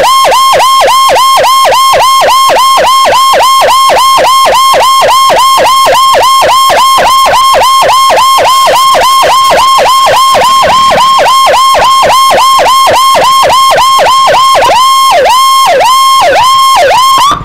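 Motorcycle-mounted electronic escort siren sounding a rapid yelp, very loud and close: a wail that dips and climbs back about four times a second, slowing over the last couple of seconds before cutting off.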